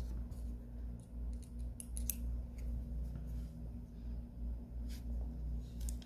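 Small screwdriver driving the last tiny screws into a smartphone's casing: scattered light clicks and ticks of the driver tip and screws. A steady low hum runs underneath.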